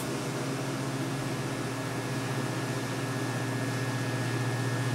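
TIG welding arc running steadily on a wrench: an even electric buzz with hiss, unchanging throughout.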